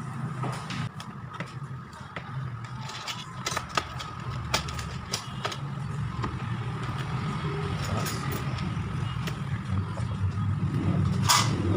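Scattered small clicks and taps of a laptop being taken apart by hand, over a steady low background hum, with a short hissing burst near the end.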